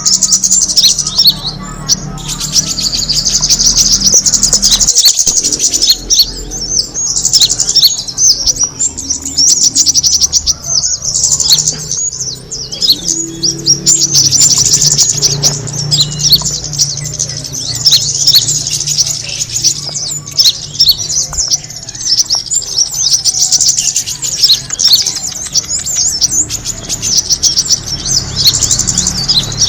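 Kemade bird call used to attract birds: a continuous stream of quick, high-pitched chirps and trills, over a faint low hum.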